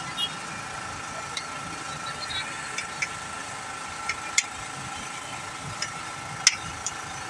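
Steady street-stall hum with a faint steady tone underneath. About eight sharp metal clinks from a metal spoon on steel pots and cookware; the loudest two come about four and a half and six and a half seconds in.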